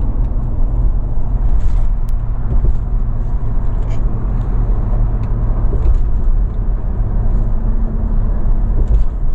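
Car driving on a motorway, heard from inside the cabin: a steady low rumble of engine and tyre noise.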